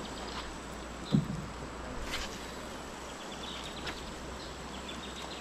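Open-air river ambience: a steady low rumble under a hiss. A rapid, high ticking trill from an animal fades out shortly after the start and starts again near the end. There is a short, sharp low knock about a second in.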